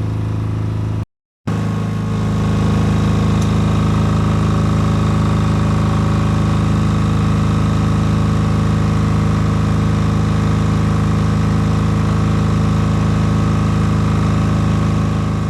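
Sumec SGD5000SE diesel generator running steadily with an even engine drone. There is a brief dropout about a second in, after which it is slightly louder.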